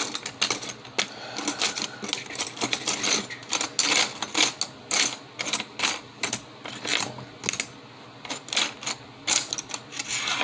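Small metal hand files and tools clinking and clattering against each other as they are handled and sorted through: a run of quick, irregular clicks and rattles.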